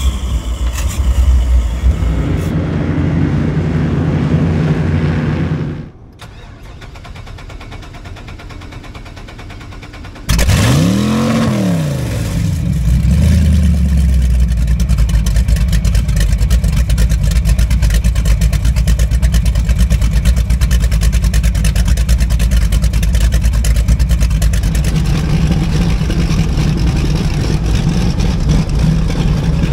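High-performance powerboat engines at the dock: quad outboard motors idling, then after a quieter stretch a big engine starts about ten seconds in, revs up and drops back, and settles into a loud, steady idle with an even pulse.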